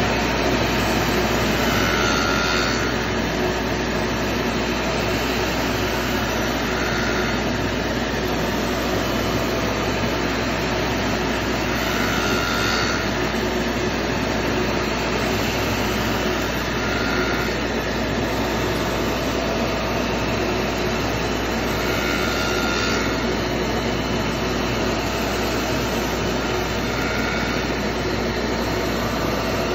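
Copy lathe's spinning circular saw blade cutting into a laminated wooden propeller blank: a steady, even whirring machine noise, with a faint short tone coming back about every five seconds.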